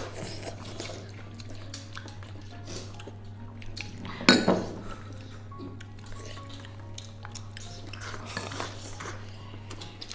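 Chopsticks tapping and clinking against a ceramic rice bowl while eating, with one sharp clink about four seconds in, under soft background music.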